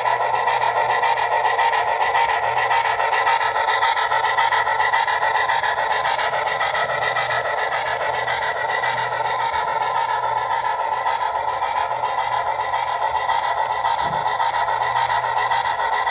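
HO-scale model of a RENFE 141 'Mikado' steam locomotive with a sound decoder, running past with its train. Steady steam-locomotive sound mixed with the running noise of the model wheels on the rails, with a thin steady high whine.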